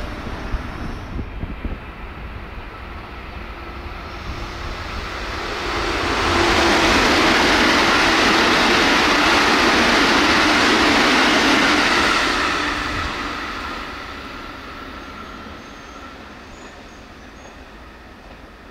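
JR Central 313-series electric train passing straight through a station at about 116 km/h. The rush of wheels and air swells over a couple of seconds, holds loud for about six seconds, then fades away.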